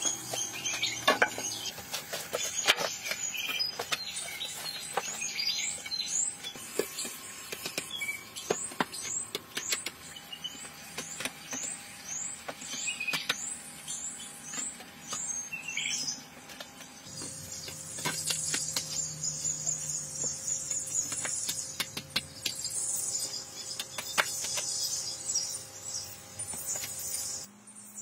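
Wildlife chirping in the background, repeating about twice a second through the first half. Scattered wooden knocks and clatter of logs and wood pieces being handled and set in place.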